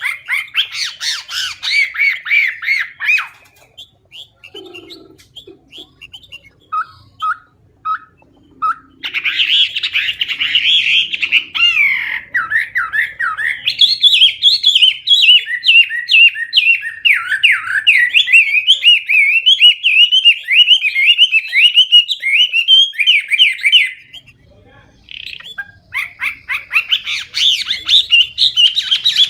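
Chinese hwamei singing loud and clear: fast, varied warbling and whistled phrases full of mimicked song fill-ins. A burst of song opens, then a few scattered notes, then a long unbroken run of song, a brief pause, and the song starts again near the end.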